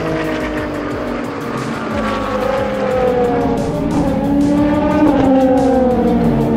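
Race car engines at speed on a circuit, several engine notes overlapping. One climbs in pitch to a peak about five seconds in and then drops away as the car passes.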